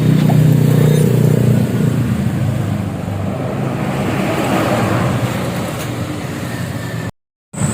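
A road vehicle passing close by: a strong low engine drone for the first second or so, fading into steady tyre and traffic noise. The sound cuts out abruptly near the end.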